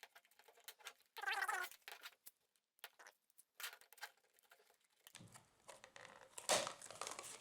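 Packaging of a speed cube being handled and opened: scattered rustles and clicks of box and plastic, busier and louder near the end.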